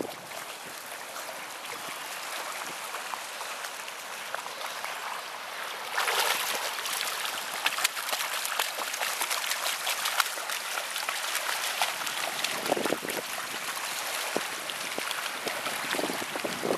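Splashing and sloshing of shallow water as a husky puppy swims and wades along the shoreline, with many small splashes; it gets louder about six seconds in.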